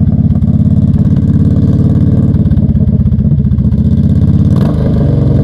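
Small engine running steadily and loud at a low, even speed, with a brief change in its note near the end.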